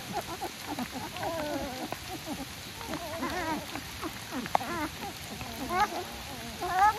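Puppies whimpering: many short, high whines that rise and fall and overlap one another.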